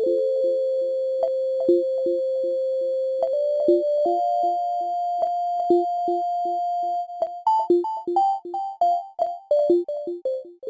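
Short synthesizer intro jingle. A held note steps upward over a pulsing lower note, then a quick run of short notes falls away in the last few seconds.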